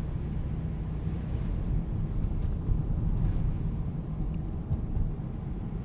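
A car driving at steady speed: a low, even rumble of engine and tyres on the road, with a few faint ticks.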